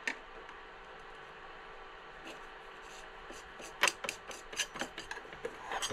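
A leveling wheel being worked by hand onto the screw under a 3D printer's bed: one click, then from about four seconds in a quick, irregular run of sharp clicks and scrapes.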